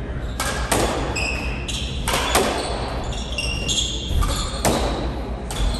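Squash ball hit by racquets and smacking off the court walls during a doubles rally: a run of sharp, echoing hits roughly every half second to second. Short high squeaks of court shoes on the wooden floor come between the hits.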